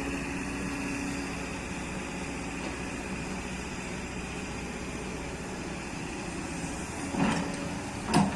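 Kobelco hydraulic excavator's diesel engine running steadily, with two knocks near the end.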